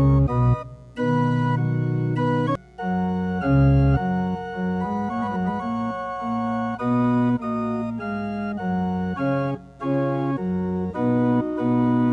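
Organ music: held chords changing in a steady succession, with a few brief breaks between phrases.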